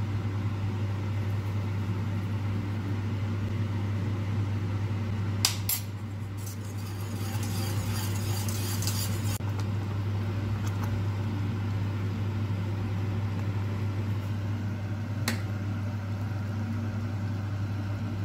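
Whisk and spatula stirring a thick béchamel sauce in a stainless steel pot, with a sharp clink of utensil on metal about five seconds in and again about fifteen seconds in, and a stretch of scraping in between, over a steady low hum.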